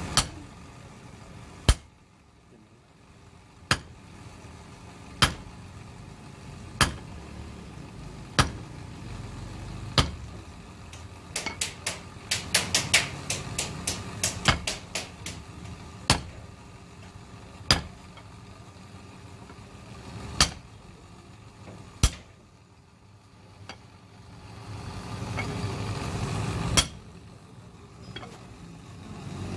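Hand hammer striking steel: single sharp ringing blows every second and a half or so, with a run of quick light taps in the middle.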